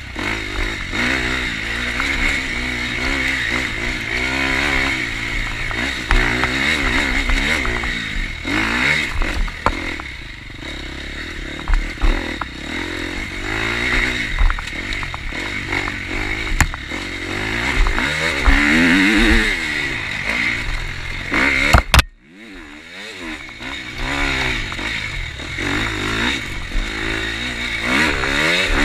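KTM 250 XC-F four-stroke single-cylinder dirt bike ridden hard on a muddy trail, the engine revving up and down over and over as the throttle is worked, with knocks and clatter from the bike over rough ground. Near the end a sharp crack is followed by a sudden brief drop in the sound before the engine noise builds back.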